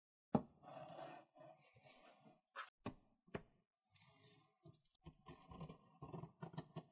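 Faint scraping of a small handheld box cutter slitting packing tape along a cardboard box, with a few sharp clicks near the middle.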